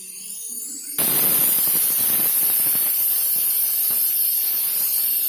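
Loud, steady hiss of cooking on the stove that starts abruptly about a second in.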